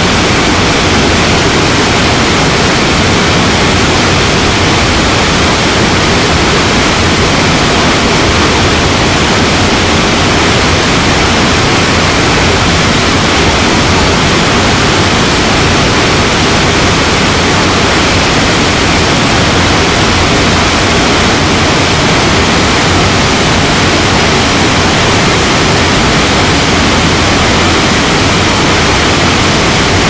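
A swollen waterfall, a heavy flow of muddy water crashing down over boulders: loud, steady rushing.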